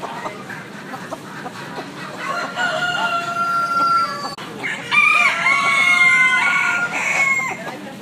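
Roosters crowing in a poultry barn. One drawn-out crow comes about two and a half seconds in, then louder, overlapping crows from about five seconds until shortly before the end.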